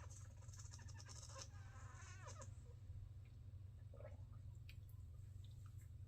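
Faint slurping of hot coffee, wavering and gurgling through the first couple of seconds, then a few soft clicks and a gulp, over a steady low hum.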